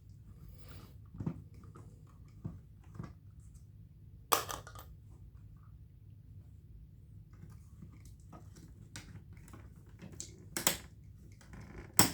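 Scattered clicks and knocks of the plastic housing of a Hoover WindTunnel upright vacuum being handled and unscrewed during disassembly. The sharpest click comes about four seconds in, and a few more come near the end.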